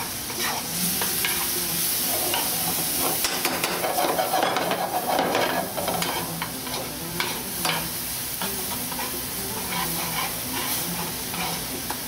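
Eggplant zaalouk (mashed eggplant with tomato, red pepper, garlic and onion) sizzling in a hot pan while it is stirred, with frequent short scrapes and taps of the utensil against the pan.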